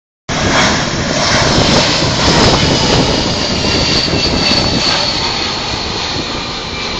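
Jet airliner passing close by: a loud rushing engine noise with a thin high whine that slowly falls in pitch, the whole sound gradually fading.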